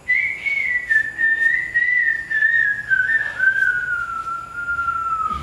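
One long whistle that slides slowly down in pitch over about five seconds, wavering slightly, and stops at the end.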